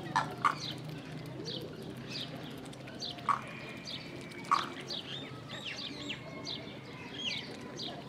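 Mixed chorus of many captive birds calling and chirping, with about four louder, sharp calls standing out over a steady low background hum.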